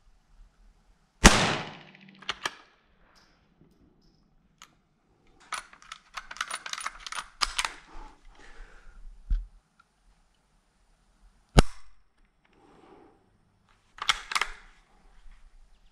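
Savage Rascal single-shot .22 LR bolt-action rifle fired once about a second in, followed by a run of metallic clicks as the bolt is worked and the rifle reloaded. Later a single sharp click comes with no report: a light strike, the round failing to fire. Near the end come more bolt clicks as it is worked again.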